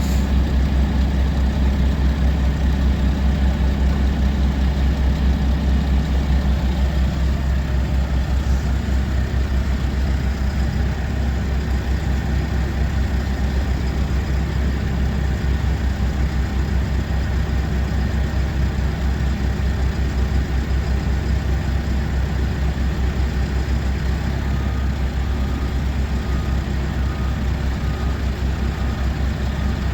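Heavy truck engine running steadily with a deep, even low rumble.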